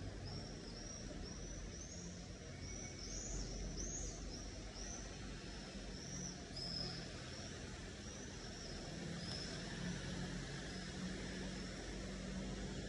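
A small bird chirping over and over, about two high chirps a second, stopping about seven seconds in, over steady outdoor noise. A faint low hum comes in during the second half.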